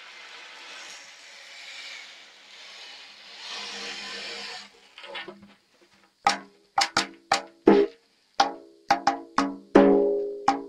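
Ocean drum: its beads roll across the head in a soft, surf-like wash that swells and fades and stops a little before five seconds in. From about six seconds in the drum is struck in quick, uneven hits that each ring briefly.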